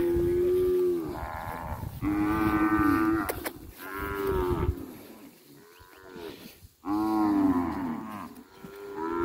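Cattle mooing: a run of loud, drawn-out moos, each about a second long, five or six in a row with short gaps, some dropping in pitch at the end.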